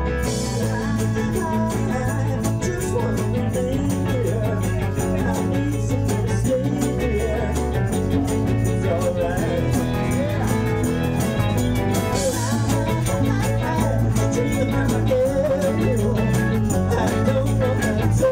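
Rock band playing a song live: electric guitar, keyboard and drums, with a steady beat and a wavering melody line over it.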